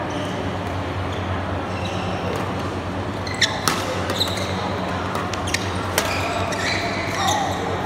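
Badminton rally: several sharp hits of rackets on a shuttlecock, starting about three and a half seconds in, over a steady low hum.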